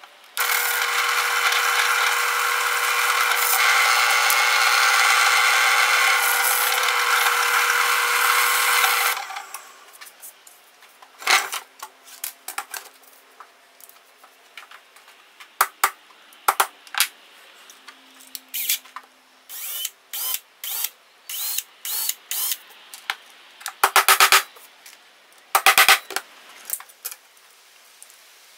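Power drill running at a steady speed for about nine seconds, then stopping. After it come scattered clicks and knocks, with two louder clusters near the end.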